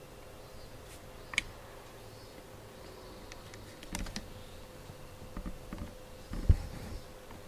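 Scattered light clicks and taps, with a dull thump about six and a half seconds in, over a faint steady hum.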